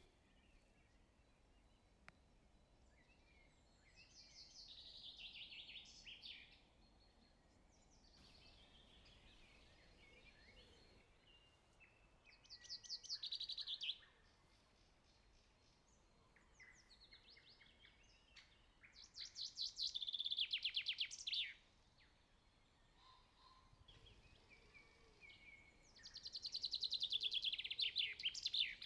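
Faint birdsong: a songbird repeats a short phrase of rapid high notes that fall in pitch, four times about seven seconds apart, with softer chirps in between.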